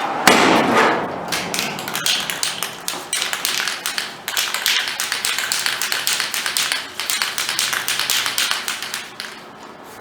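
Rapid, irregular light tapping and clicking of a hand tool on metal, several strikes a second, after a short louder burst of noise in the first second.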